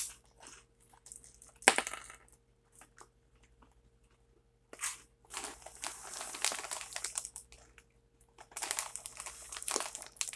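Clear plastic snack bag of caramel corn puffs crinkling as it is handled, in long stretches of rustling, with a sharp crunch about two seconds in.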